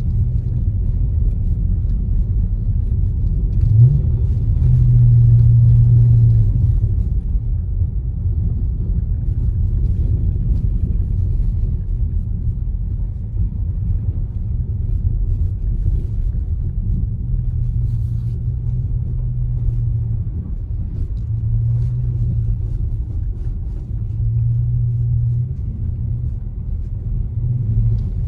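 Dodge Charger R/T's 5.7-litre Hemi V8 and road noise heard from inside the cabin while driving: a steady low drone that swells and eases several times, with a brief rise in pitch about four seconds in.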